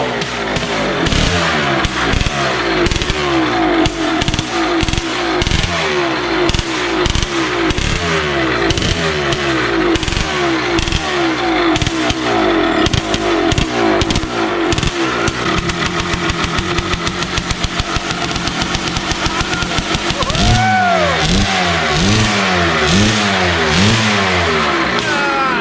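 Two-stroke motorcycle engine running unevenly through a makeshift scrap-part exhaust, then revved up and down in about five quick throttle blips near the end.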